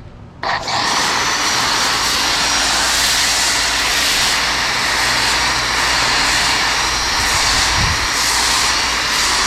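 Active 2.0 electric pressure washer spraying soap through a foam cannon: a loud, steady hiss of spray over the low hum of the running washer, starting suddenly about half a second in as the trigger is pulled.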